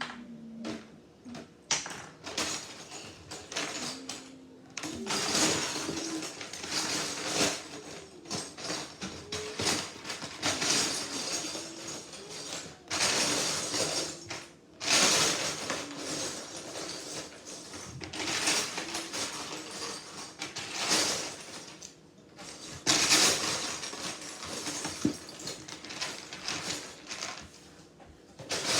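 Plastic Lego bricks rattling and clicking as they are sorted and snapped together by hand, in stretches of a few seconds with short pauses between.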